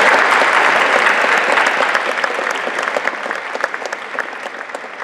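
Audience applause, loud at first and steadily dying away, leaving a few separate claps near the end.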